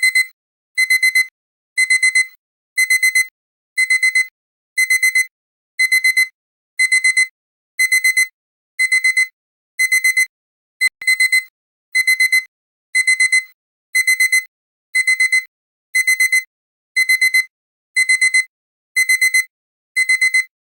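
Digital alarm-clock beeping, the countdown timer's finishing alarm: groups of four quick, high beeps, one group about every second.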